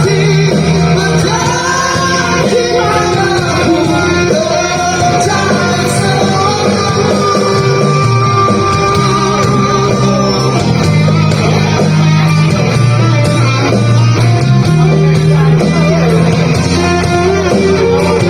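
Rock song with a sung melody over guitar, bass and drums.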